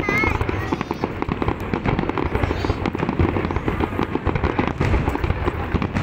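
Aerial fireworks display: a dense, continuous barrage of bangs and crackles with no let-up.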